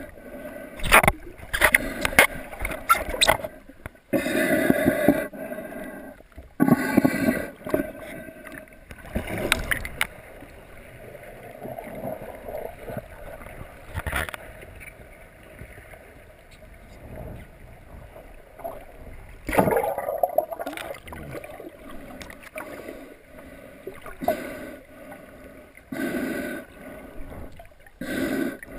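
Muffled underwater noise heard through a submerged camera: water swishing and gurgling, in irregular bursts, with several sharp knocks and rubs against the camera.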